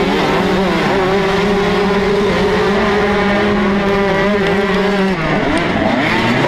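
TM 125cc two-stroke motocross engine held at high, steady revs off the start, with the engines of a pack of other dirt bikes around it. About five seconds in its pitch drops and the other engines' rising and falling revs come through.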